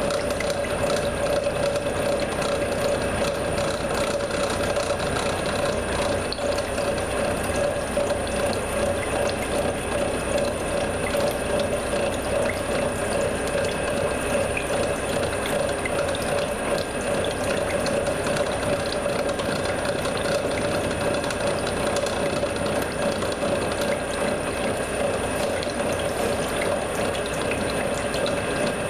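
CNC milling machine hobbing a helical gear with a gear hob: a steady machine whine over a dense, rapid clatter of the hob's teeth cutting, unchanged throughout.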